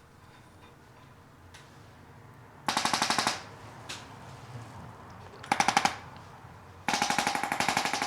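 Handheld percussion massage gun hammering in short bursts against the patient's back and shoulders: a rapid buzzing rattle with a whirring motor tone, heard three times, briefly twice and then again for longer near the end.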